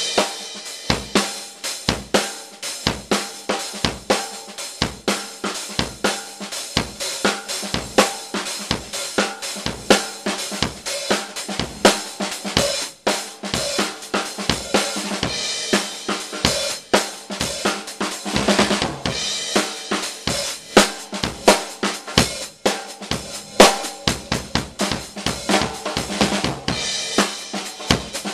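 Full drum kit played in a steady, busy groove, with rapid strikes on a Mapex Black Panther Sledgehammer hammered-shell snare drum, bass drum kicks, hi-hat and Paiste 2002 cymbals on a Premier Artist Maple kit.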